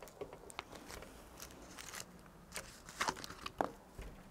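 Hands bending a young wired Thuja's trunk and handling its foliage and plastic pot: faint scattered crackles and rustles, with a few sharper clicks about three seconds in.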